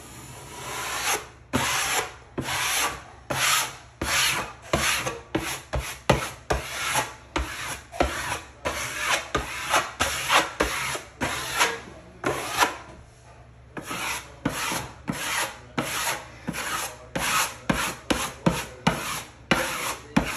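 A hand sanding pad rubbed back and forth over a hardened coat of setting-type joint compound (hot mud) on drywall, knocking down the high spots. It makes even, scratchy strokes at about two a second, starting about a second in, with a short pause about 13 seconds in.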